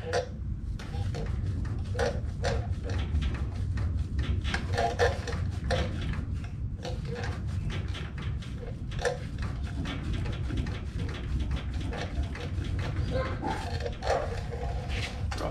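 Irregular light clicks and knocks of hand work on a car's front suspension behind the wheel, over a steady low hum.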